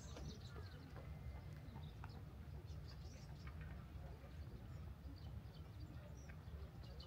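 Faint, scattered bird chirps over a steady low rumble.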